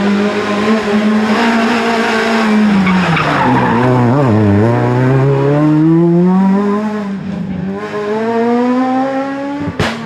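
Renault Clio rally car's engine dropping in pitch as it slows into a tight bend, with some tyre squeal. It then revs back up and pulls away, climbing through the gears, before a sudden click cuts it off near the end.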